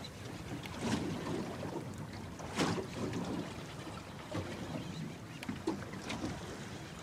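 Small waves lapping and slapping against the hull of a drifting boat at sea, with irregular splashes, the loudest about two and a half seconds in, over a steady rush of wind and water.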